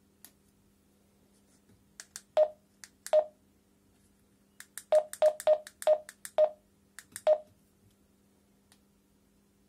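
Keypad beeps of a TYT handheld two-way radio as a frequency is keyed in digit by digit: eight short beeps, each with a click of the key. Two come about a second apart, then five in quick succession, then a last one a second later.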